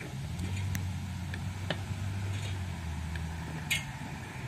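A steady low motor hum, like a vehicle engine running, with a few sharp clicks and knocks. The loudest knock comes near the end, and they fit an aluminium ladder knocking against the roof edge.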